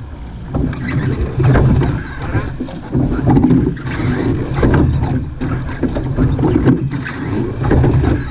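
Surf boat being rowed through fast-flowing river water: oars knocking and splashing, with rushing water under the hull.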